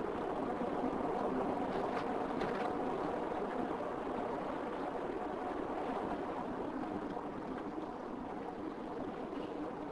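Car driving along a country road, heard from inside the car: steady engine and tyre noise with a faint low hum.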